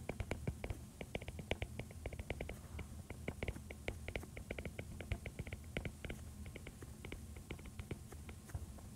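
Stylus tip tapping and clicking against a tablet screen as equations are hand-written: quiet, irregular small clicks, several a second.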